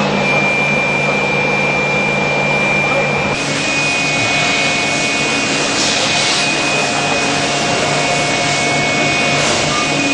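Okuma Macturn 350 CNC lathe machining a metal workpiece: a steady hiss of cutting noise with a thin, steady high whine. The sound changes character abruptly about three and a half seconds in.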